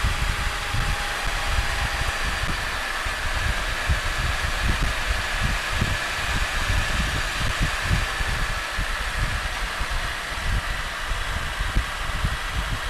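A Can-Am Spyder three-wheeled motorcycle cruising at steady speed, its engine and road noise under constant wind buffeting on the microphone.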